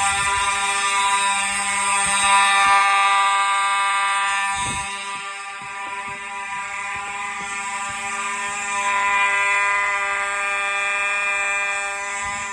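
Fire alarm horns set off by a pull station, sounding one continuous buzzing tone without pauses. The fire alarm system's activation test works.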